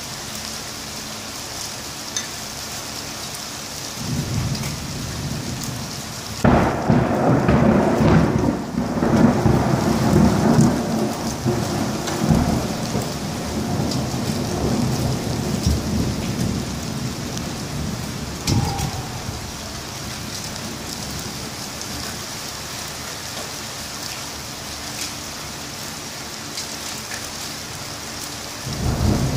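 Steady rain falling, with a close thunderclap: a low rumble builds about four seconds in, then a sudden crack and a long rolling rumble that fades away over about ten seconds. A second rumble of thunder starts right at the end.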